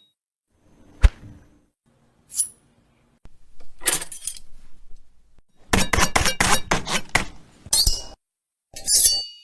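Knife sound effects in quick succession: a sharp metallic click, a short ring, a longer blade scrape, then a fast run of about ten sharp knocks and a ringing metal swish near the end.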